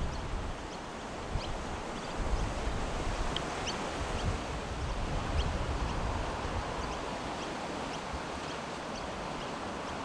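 Wind buffeting the microphone in uneven gusts over choppy water, with short high bird chirps scattered throughout.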